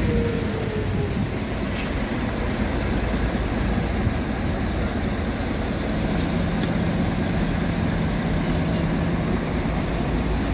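Buses and other vehicles running with a steady low engine and traffic rumble. A falling engine tone fades out about a second in, and a steady low engine hum comes in past the middle.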